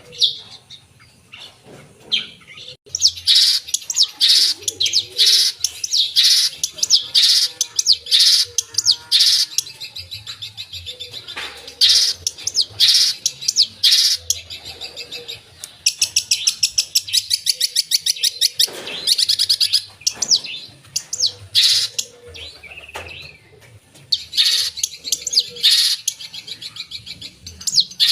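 Long-tailed shrike (cendet) singing vigorously and non-stop, packing its song with mimicked phrases. It is a fast, loud string of sharp high chirps and rapid rattling trills, starting about three seconds in after a short lull.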